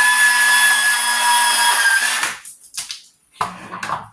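Power-driven wire stripping machine running with a steady whine that stops about two seconds in. It is followed by a few clicks and a louder rustle near the end as wire is handled.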